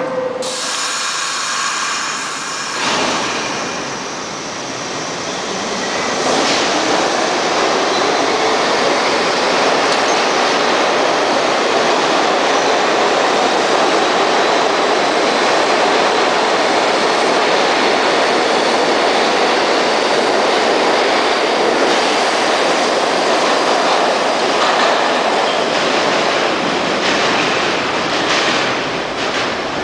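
New York City Subway train pulling out of a station. About three seconds in, the motors start with a rising whine as the train speeds up, then a loud, steady rumble and rattle of the cars running along the track past the platform.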